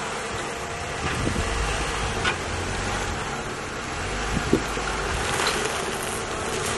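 Jeep Gladiator on 40-inch tyres crawling slowly over rocks: a low engine rumble under wind buffeting the microphone, with a couple of sharp knocks about two and four and a half seconds in.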